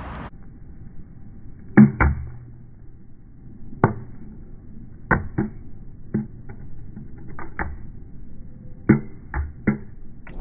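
Empty plastic bottle knocking and clattering as it bounces and tumbles on stone paving: about a dozen short, dull hits at uneven intervals, some in quick pairs.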